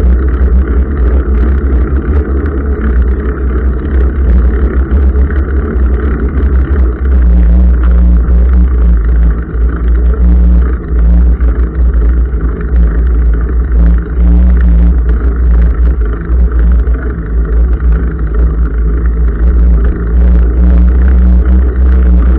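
A motor vehicle running with a loud, steady low rumble.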